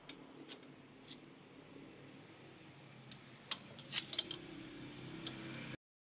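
Light metallic clicks and taps, as of tools or small metal parts being handled, over a steady low background noise. The clicks are scattered at first and come thicker and louder about three and a half to four and a half seconds in, then the sound cuts off abruptly just before the end.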